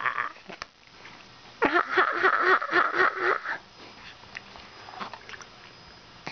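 Baby making noises with his tongue and mouth: a rapid, buzzing, spluttery mouth sound lasting about two seconds, followed by a few faint clicks.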